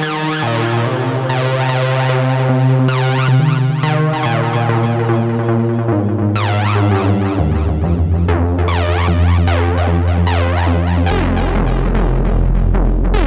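Behringer Odyssey paraphonic analogue synthesizer playing sustained chords over a bass line that steps down in pitch several times. A resonant filter sweeps rising and falling through the upper range again and again.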